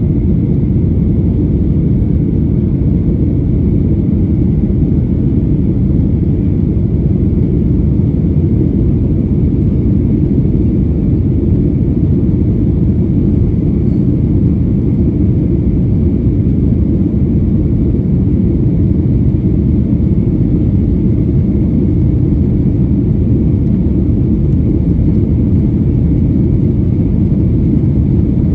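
Steady, loud rumble of a Boeing 737-900ER's CFM56-7B engines and airflow heard inside the cabin, with a faint steady whine above it.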